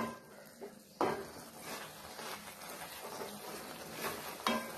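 Wooden spatula stirring and scraping crumbled goat blood fry around a stainless steel pan, with a light sizzle of the mixture frying dry. A few sharper knocks of the spatula against the pan come at the start, about a second in and near the end.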